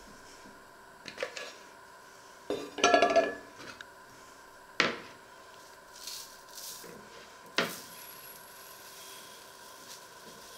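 Kitchenware being handled: a ceramic mug and cups knocking against a stainless steel pot lid and the hob. A cluster of clinks with brief metallic ringing comes about three seconds in, then two sharp single knocks a few seconds apart.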